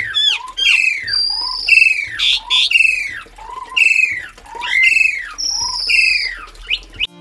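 Asian pied starling (jalak suren) calling loudly: a repeated falling, slurred call about every second, each with a short low note, and a long high whistle twice.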